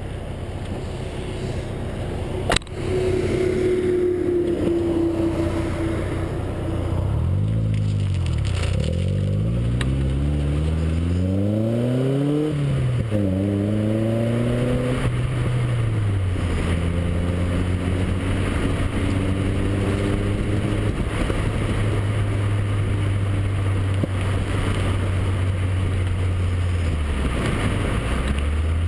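Nissan 240SX's 2.4-litre four-cylinder engine heard from outside the car, revving up through the gears with a break in pitch at each shift, then holding a steady note at cruising speed, over wind and road noise. A single sharp thump comes a couple of seconds in.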